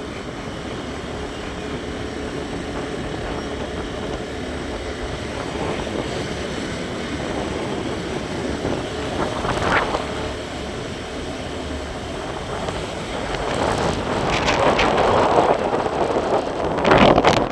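A vehicle travelling along a road, its engine and road noise steady, with wind buffeting the microphone. The wind gusts grow louder in the last few seconds.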